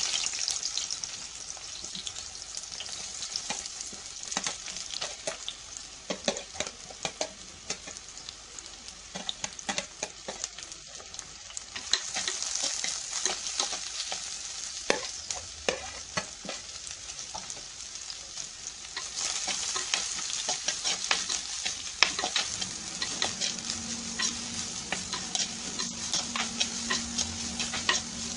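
Sliced onions and green chillies sizzling in hot oil in an unglazed clay pot, with a metal spoon scraping and clicking against the pot as they are stirred. The sizzle grows louder about twelve seconds in and again about nineteen seconds in.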